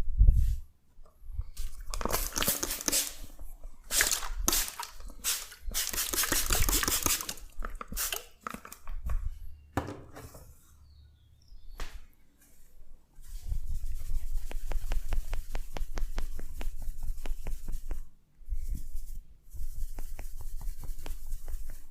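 Head massage: hands rubbing and scrubbing through hair and scalp in rough bursts, then a longer run of quick, even taps, about five a second, over a low rumble.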